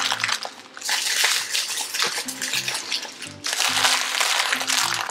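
Plastic protein-bar wrappers crinkling and rustling as a big pile of bars is handled, with background music of short low notes underneath.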